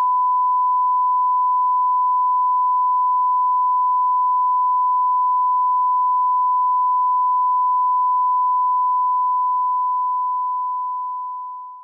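Line-up test tone that goes with colour bars: one steady, unbroken electronic beep at a single pitch, fading out over the last few seconds.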